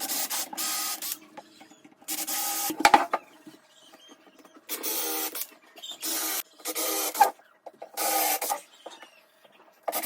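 Cordless drill running in about seven short bursts with pauses between, drilling countersunk pilot holes and driving wood screws into the plywood of a drawer box.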